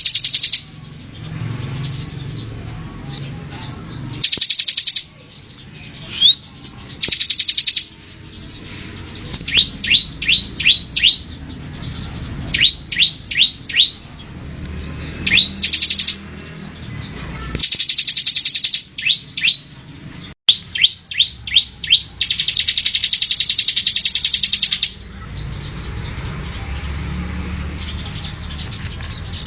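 Bar-winged prinia (ciblek) singing: runs of sharp, quick chirps, about four a second, alternating with dry buzzing trills, the longest about three seconds. A low hum runs underneath.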